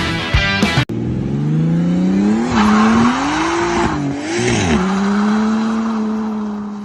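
Brief end of a rock-guitar music sting, then a car engine revving up in a rising pitch, dipping twice and holding high revs before fading out. A burst of rushing noise, like tyre squeal, comes in over the revs for about a second and a half near the middle.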